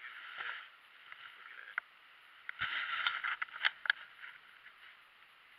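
Rustling and scraping handling noise with several sharp clicks, in two short spells: one at the very start and a busier one from about two and a half to four seconds in.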